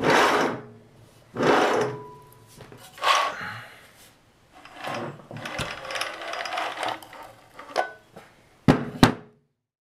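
A 3D-printed CNC carriage rolling back and forth along its rail on 608 skate bearings: several short rolling rushes, a longer rough run in the middle, then two sharp knocks near the end.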